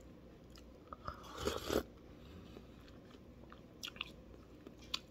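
A person chewing and biting a fried meatball (bakso goreng), with one louder crunchy bite about a second and a half in and a few short clicks near the end.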